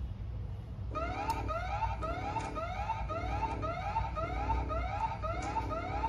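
Electronic fire-alarm siren starts about a second in and sounds continuously in repeated rising sweeps, about two a second. It is the alarm for a fire-alarm signal triggered on the door access-control system, which forces the doors open. A steady low hum runs underneath.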